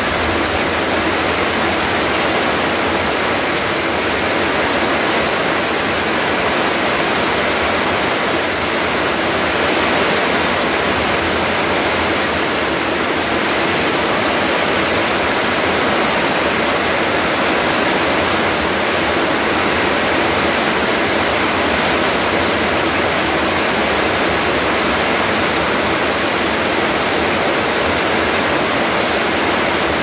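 Heavy rain falling in a steady downpour, a loud, even hiss with no let-up.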